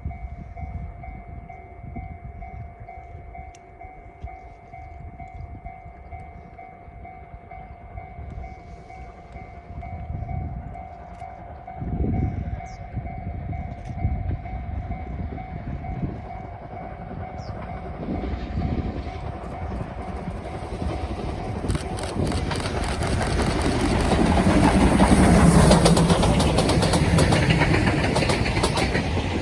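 A level-crossing warning signal rings steadily as the C57 steam locomotive approaches, its exhaust chuffs growing louder. About two-thirds of the way through, the locomotive and its coaches pass close by, drowning the signal, with rapid clattering of wheels over the rail joints.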